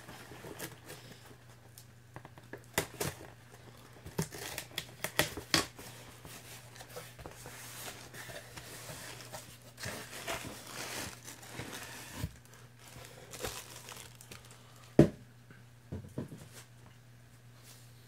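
A cardboard shipping box being opened by hand. Packing tape rips off in several sharp pulls, then cardboard flaps and plastic wrapping crinkle. About fifteen seconds in comes a single sharp knock, the loudest sound.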